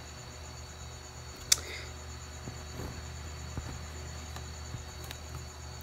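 Quiet room tone with a steady low hum and a continuous high pulsing chirr. There is one sharp click about one and a half seconds in, and a few faint pen taps on paper as a bracket is written.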